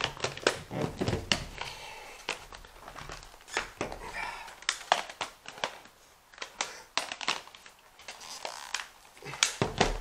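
Hard plastic parts of a PJ Masks Deluxe Battle HQ playset tower clicking and knocking irregularly as they are handled and pressed together by hand, the pieces not snapping into place.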